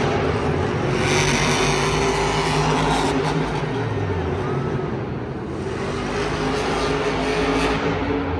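Monster truck's supercharged V8 engine running hard, its pitch dropping as it eases off about four seconds in.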